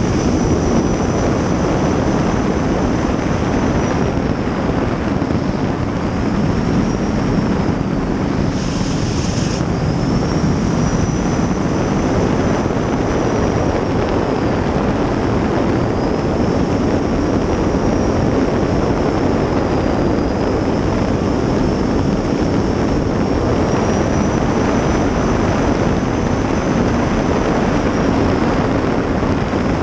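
Gas turbine of a 23-foot Outlaw Eagle racing jet boat running at speed, heard from inside the cockpit: a loud steady rush of engine, water and wind, with a high turbine whine that dips and recovers several times. A short hiss cuts in about nine seconds in.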